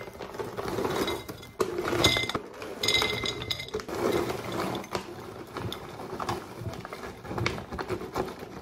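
Dog treats being tipped and shaken into a bowl: continuous rustling and handling with repeated clinks, and the bowl rings briefly twice, about a second apart.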